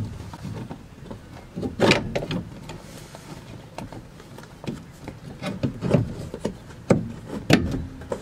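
Knocks, clunks and rubbing of a clutch master cylinder being worked by hand into its mounting behind the dashboard, several sharp knocks, the loudest about two seconds in and again near the end.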